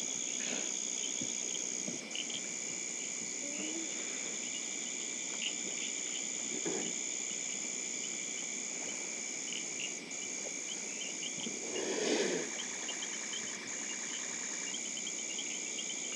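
Nature ambience of insects: a steady high-pitched insect drone with scattered cricket chirps. A brief louder sound comes about twelve seconds in, followed by a few seconds of rapid pulsing trill.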